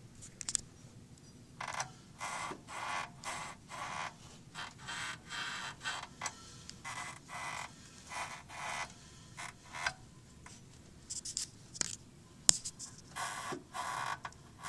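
Rear engine mount of a Volkswagen Polo Sedan creaking: a series of short squeaky creaks in an irregular rhythm, about one to two a second, with a sharp click about twelve seconds in.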